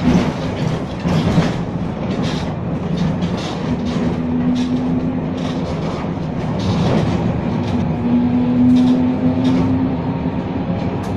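Vintage M 24 museum tram heard from inside its wooden saloon while running: a steady rumble of steel wheels on the rails with scattered clicks and rattles. A low steady hum comes in twice, in the middle and again near the end.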